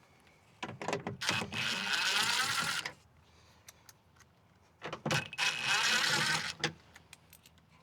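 Small power tool, likely a cordless drill/driver, running in two bursts of about a second and a half each, with a few clicks before each, as it backs out the screws holding the door speaker.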